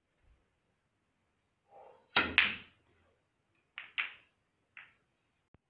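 Snooker balls clicking: the cue tip striking the cue ball and balls knocking into each other. There is a loud pair of sharp clicks about two seconds in, another pair around four seconds and a lighter click near five seconds.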